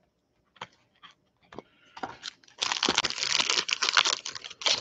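Panini Optic football card pack wrapper being torn open and crinkled: a few light clicks, then about two seconds of dense crackling starting about two and a half seconds in.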